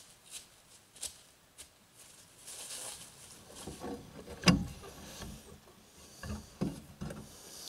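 A wooden board and a small cast-iron bell on its bracket being handled and set against each other on a pickup's bed liner: light clicks at first, then scattered knocks and scrapes, with a sharp knock about halfway through.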